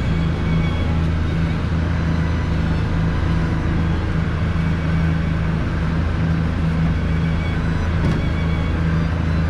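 Steady low mechanical hum and rumble, with a pulsing undertone.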